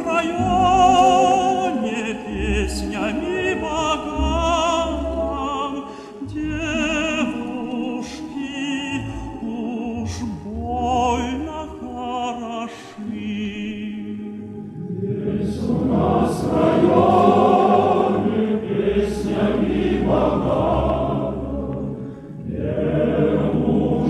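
Background music: a sung vocal with strong vibrato over accompaniment.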